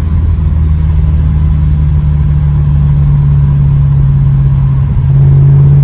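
BMW E92 M3's 4.0-litre V8 droning steadily at motorway cruise, heard from inside the cabin over road noise. About five seconds in, the drone grows louder and slightly deeper.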